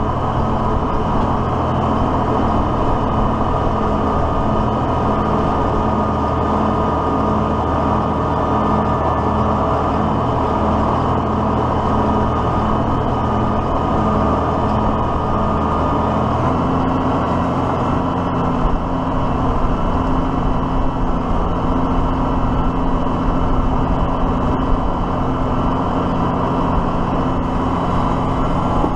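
Diesel tractor engine running steadily under work; its note rises slightly about two-thirds of the way through.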